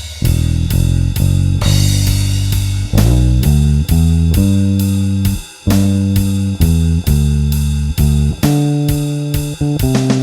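Electric bass (a Bronco bass with a G+B Toaster neck pickup and flatwound strings, played without a compressor) playing a blues bass line over drums with a steady cymbal beat. The bass drops out for a moment about halfway through.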